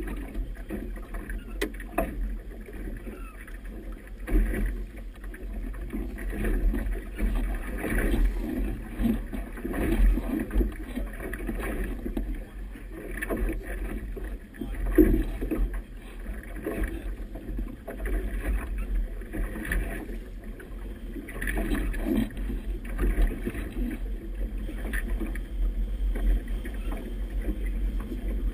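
Wind rumbling on the microphone, with choppy river water slapping and splashing against the hull of a small boat in irregular surges every second or two.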